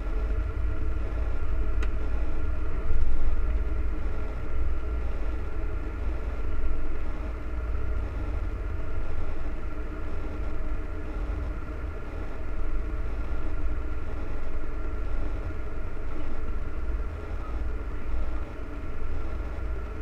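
John Deere 9460RT track tractor running, heard inside the cab: a steady low rumble with a steady whine above it, and a single click about two seconds in.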